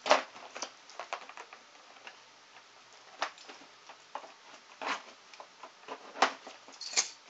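Scattered light clicks, taps and rustles of cardboard and plastic packaging being handled while an RC truck's box is opened.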